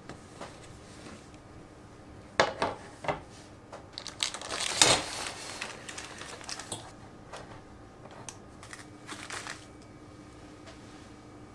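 Baking parchment crinkling and rustling in several bursts as a baked sponge sheet is slid off a metal baking tray, with a few sharp knocks a little over two seconds in.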